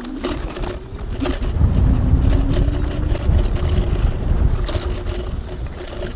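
TRBK-M2 electric hyperscooter riding over a sandy trail: a steady motor whine, scattered clicks and rattles over bumps, and wind rumbling on the helmet microphone that gets louder about a second and a half in.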